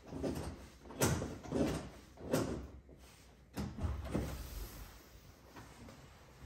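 A series of household knocks and bumps, about five in the first four seconds, then quieter handling noise.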